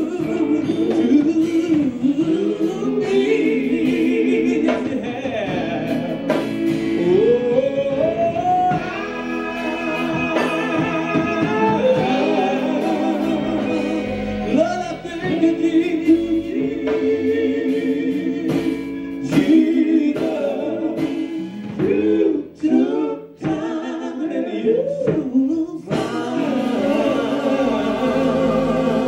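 Male gospel quartet singing live with electric guitar: a lead voice with heavy vibrato over steady held backing harmonies.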